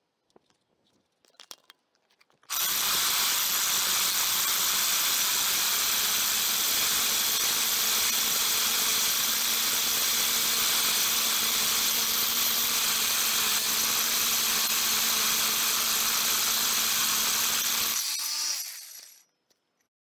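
Corded hammer drill with a 4-inch core bit grinding into a concrete curb, working slowly through the steel rebar inside it. It starts suddenly about two and a half seconds in, runs steadily, then cuts off near the end and winds down over about a second.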